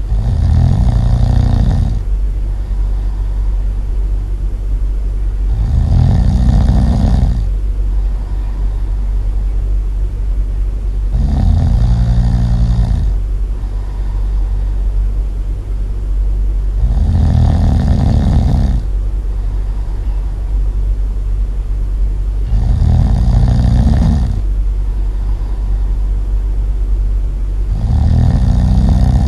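Loud snoring repeating about every five and a half seconds, six snores in all, each lasting a second or so, over a constant low rumble.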